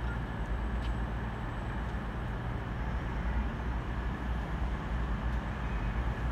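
Class 222 Meridian diesel multiple unit running slowly on the approach, its underfloor diesel engines giving a steady low rumble.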